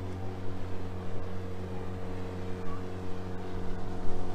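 Outboard motor of a small boat running at a steady pitch, a constant drone.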